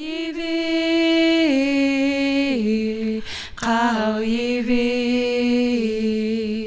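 A woman singing long held notes unaccompanied, each phrase sliding up into its first note and then stepping down in pitch; a short break about three and a half seconds in, then a second held phrase.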